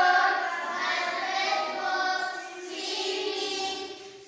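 A class of young pupils chanting words aloud together in a drawn-out, sing-song unison.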